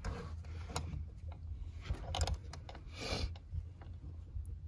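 Scattered light metal clicks and clinks of a steel body-grip (Conibear-style) trap, its chain and stake rod being handled while the trap is set, with a short rustle about three seconds in.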